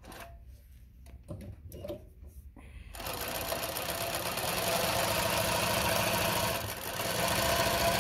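Consew CN2053R-1A industrial zig-zag sewing machine running at steady speed, stitching through fabric. It starts about three seconds in, after a few light knocks, and stops abruptly at the end.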